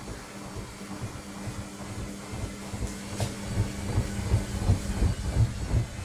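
Washing machine on its spin cycle: the motor hums steadily while the drum turns, with rhythmic low thuds from the load, about three a second, that grow louder from about halfway through.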